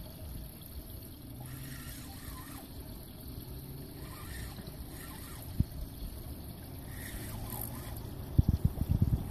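Steady low rumble of wind and water around a small boat, with one sharp knock about halfway through and a quick run of knocks and bumps near the end.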